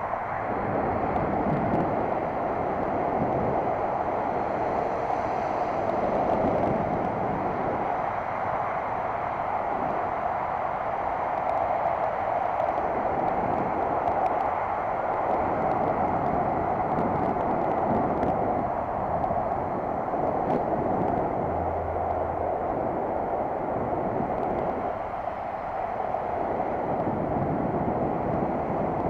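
Steady rushing wind and road noise from a bicycle riding along a paved path, picked up by a bike-mounted camera, with a low rumble that swells and fades every few seconds.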